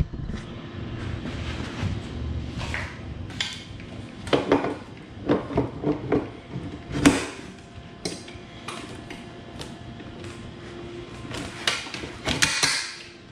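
The metal handle tubes of an electric pressure washer being slid and knocked onto the frame's uprights during assembly: irregular clicks and clanks, a run of them in the middle with the loudest about seven seconds in, and more near the end.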